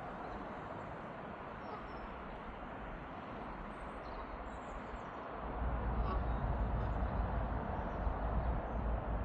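Distant, steady roar of a Boeing 747-8 freighter's four turbofan engines passing high overhead at cruise altitude. About halfway through, a deeper, fluttering low rumble joins in and the sound grows louder. A few faint bird chirps are heard.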